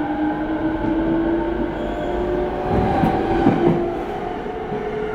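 Rinkai Line 70-000 series electric train running on the line: steady rumble of wheels on rail under a motor whine that slowly rises in pitch, with a few rail clicks about three seconds in.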